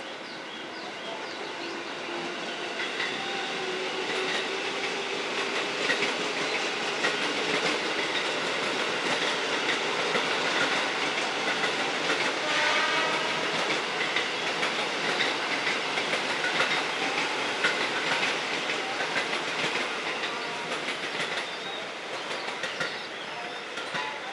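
A train passing close by on the rails, its wheels clattering over the rail joints. The sound builds over the first few seconds, holds loud through the middle and fades near the end.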